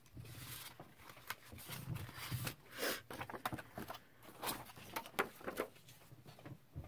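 Scissors cutting paper: a run of irregular short snips and paper rustles, a few louder snips in the middle.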